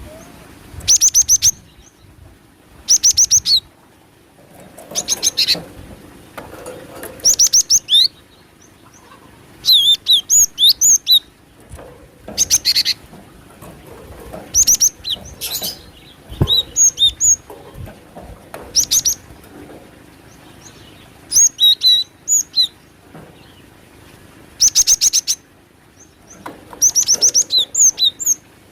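Cinereous tit (glatik batu) calling: short bursts of rapid, high chattering notes repeated about every two seconds, played as a bird-trapping lure recording.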